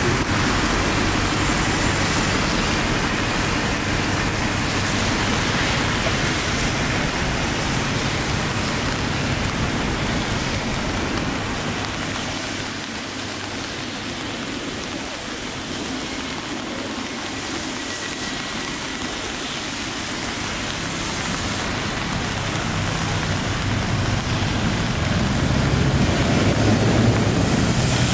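Wet city street ambience: rain falling on paving and traffic tyres hissing on a wet road. It eases off in the middle and builds again toward the end as traffic draws nearer.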